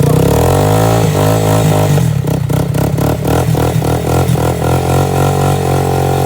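Off-road engine of an ATV or dirt bike running, its pitch sliding down at first and then holding fairly steady. A fast run of clattering knocks comes through the middle.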